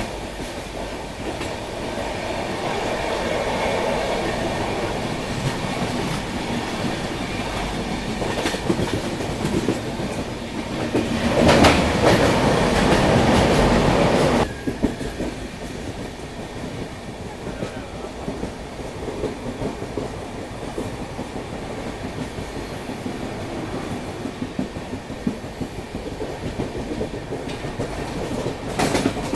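Indian Railways passenger train running, heard from an open coach doorway: steady running noise with wheels clattering over the rail joints. About halfway through, the noise grows louder and denser for a few seconds while the train is in a tunnel, then drops off suddenly.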